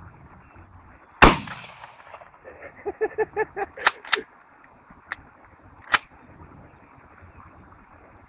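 A single pump-action shotgun shot about a second in, with a short ringing tail. A man then laughs briefly, and the pump is racked with two sharp clacks, ejecting the spent shell. Two more clicks follow.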